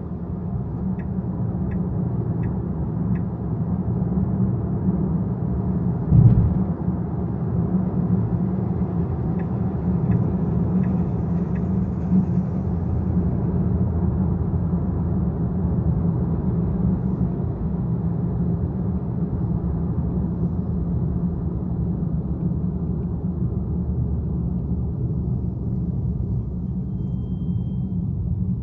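Car driving on a city road: a steady low rumble of road and engine noise. A single thump stands out about six seconds in, and a few faint ticks come in the first few seconds.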